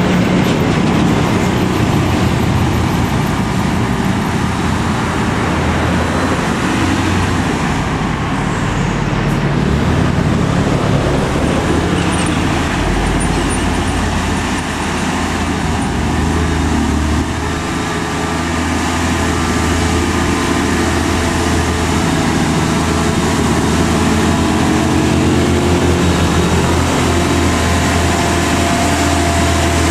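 Heavy diesel truck engine running steadily, with road traffic noise.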